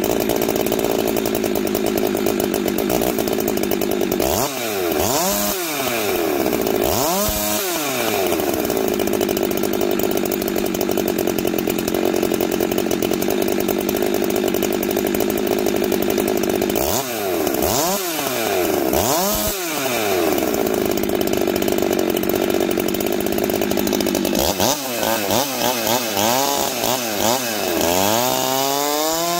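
Husqvarna 390 XP two-stroke chainsaw running at high revs with no load. Twice the revs drop and climb straight back, and near the end it is revved up and down several times before falling back to a lower speed.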